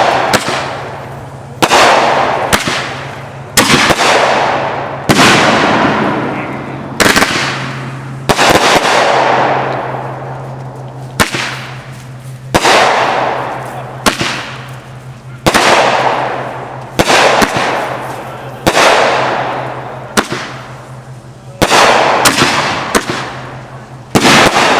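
Fireworks going off in a steady run: a sharp aerial burst about every second and a half, each trailing off over a second or so, with a steady low hum underneath.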